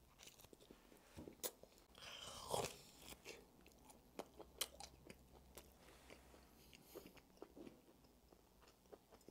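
A person chewing a slice of ham-and-pineapple pizza close to a clip-on microphone: faint, irregular wet clicks and soft crunches of the chewing mouthful, a little louder about two seconds in.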